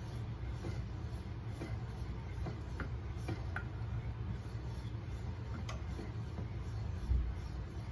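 Wooden spoon stirring a bubbling soy-sauce liquid in a stainless steel saucepan, with a scatter of light clicks as the spoon taps the pan, over a steady low hum. A low thump near the end.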